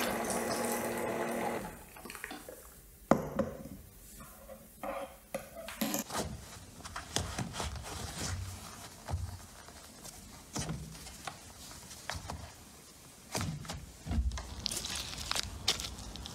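Kitchenware and utensils being handled during food preparation. A steady sound lasts for the first second and a half or so, then come scattered knocks and clinks, with a few duller thuds.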